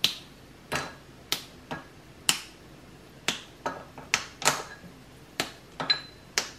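Caramel with dark chocolate in it popping and spattering inside a covered stainless steel pan: about a dozen sharp, irregular pops, some ringing faintly off the metal lid.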